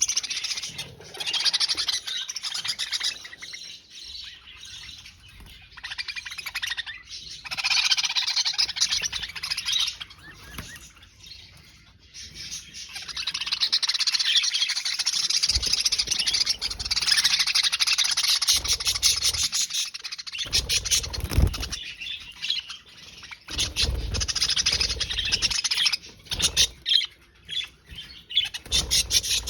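A group of budgerigars chirping and chattering in long, rapid runs with short pauses, with a few low thumps under the chatter.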